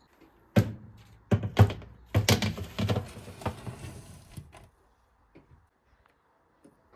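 A run of sharp knocks and clatters, like hard objects being set down and handled, over about four seconds, then stopping.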